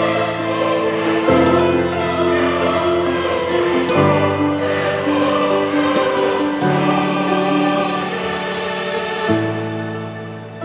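Background music of a choir singing slow, held chords that change about every two and a half seconds.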